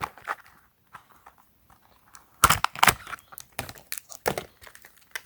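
Plastic packaging being handled, crinkling and clicking, with a couple of sharp clicks about halfway through.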